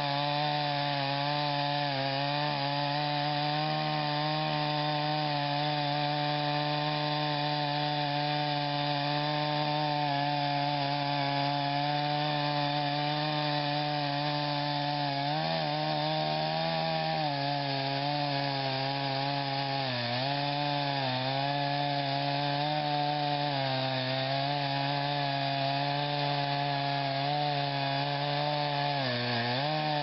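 Chainsaw engine running at high speed in a rail-guided chainsaw mill, ripping along a log. Its pitch dips briefly several times as the cut loads it.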